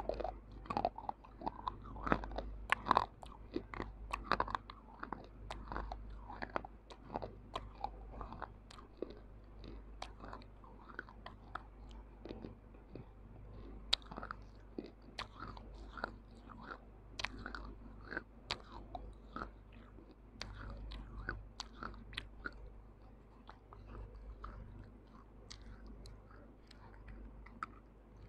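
Baked clay being bitten and chewed right at a microphone: many short, sharp crunches and crackles, with a fair amount of soft mouth-chewing between them.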